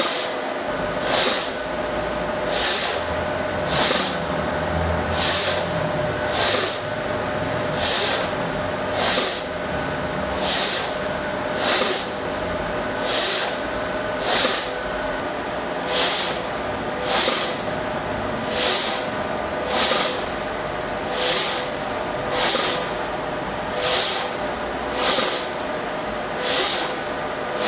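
Machine linear axis driving a test slide back and forth, with a hissing whoosh on each move about every 1.3 seconds over a steady hum.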